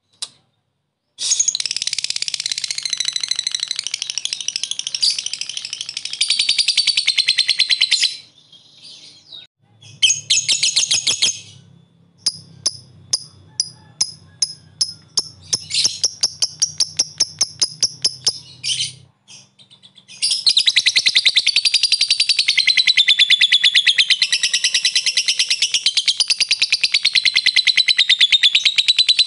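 Lovebird ngekek: long, high-pitched, rapid chattering trills, with a stretch in the middle of separate sharp ticks at about two a second (the 'ngetik' call) before the long trill starts again.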